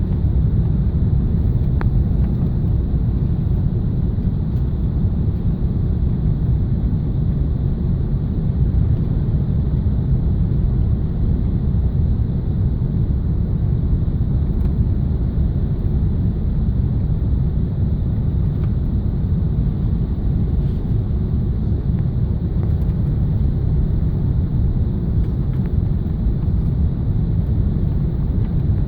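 Steady low rumble inside the cabin of an Airbus A380 airliner: engine and airflow noise heard from a window seat, even throughout with no sudden changes.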